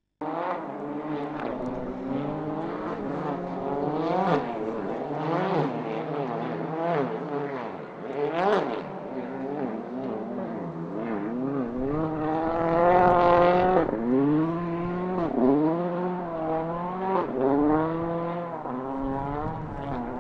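World Rally Car engines revving up and falling back again and again through gear changes, with a steady lower engine note underneath. The longest, loudest high-rev stretch comes about 13 seconds in.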